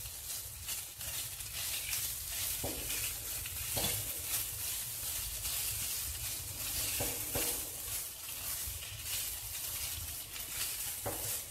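Prawns sizzling as they fry in a wok over medium heat, with a steady hiss, while a spatula tosses them, scraping and tapping against the pan several times at irregular moments.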